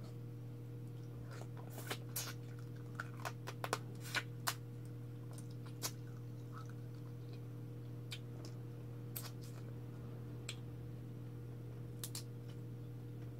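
Cooked blue crab (alimasag) being cracked, picked apart and sucked by hand while eating: a scatter of short sharp cracks and clicks, most of them in the first half, over a steady low hum.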